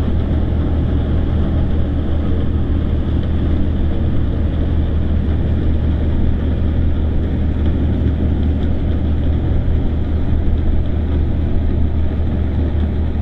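Cargo ship M/S Westborg's diesel engine running as the ship passes close by. It makes a steady, deep rumble with a low, even hum under it.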